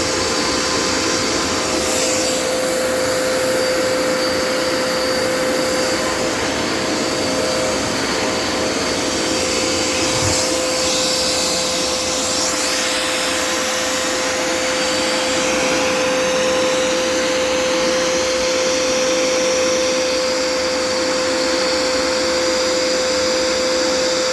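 Dirt Devil Endura Reach vacuum running continuously: a steady motor whine over the rush of suction air, with the airflow sound shifting partway through as the nozzle moves.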